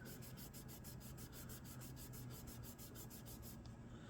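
Faint, rapid scrubbing of a cleaning brush on a pistol slide, in fast, even back-and-forth strokes, several a second, over a low steady hum.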